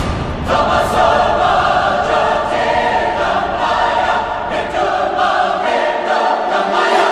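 Dramatic music in which a choir sings long, held notes.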